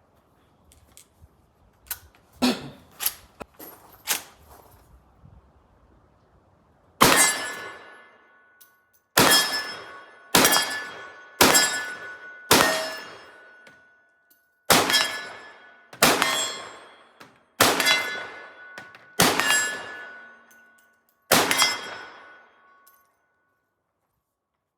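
Rossi R92 lever-action rifle firing ten .357 Magnum rounds, one shot every one to two seconds, with a ringing tone lingering after each shot from the steel plates being hit. A few light metallic clicks come a few seconds before the first shot.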